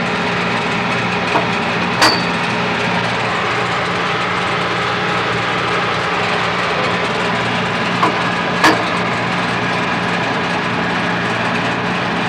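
Machinery running steadily beneath a railroad car, a low hum under a broad hiss. Sharp metallic clicks come about two seconds in and twice around eight seconds in.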